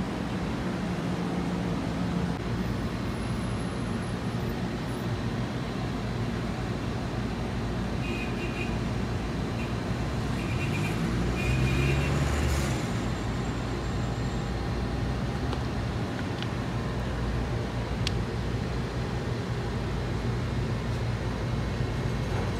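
Steady road traffic noise with a low engine hum, one vehicle passing louder about halfway through.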